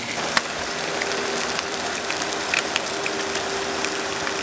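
Tilapia fillets sizzling in hot oil in a grill pan on an electric burner: a steady frying hiss with scattered small pops, over a faint steady hum.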